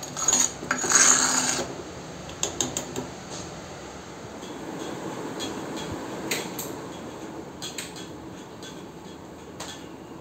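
A steel ladle scraping and clinking against a clay pot as thick kuzhambu is scooped, loudest for the first second and a half, followed by scattered light clinks.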